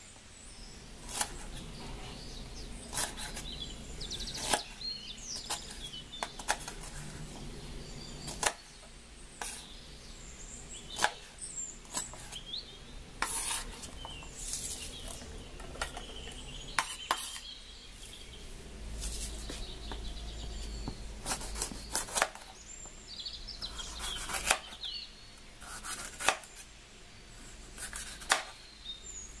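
Kitchen knife cutting red and green bell peppers on a wooden cutting board: irregular sharp knocks of the blade against the board, about one every second or two, with quiet slicing between.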